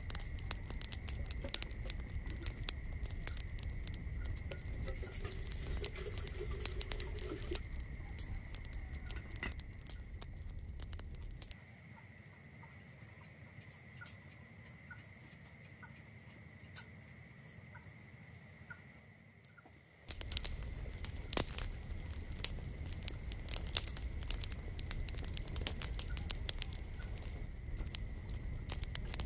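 Wood fire crackling and popping in a clay stove, with a thin steady high tone beneath. About twelve seconds in the crackling gives way to a quieter spell with a few faint short chirps, and the dense crackling comes back near twenty seconds.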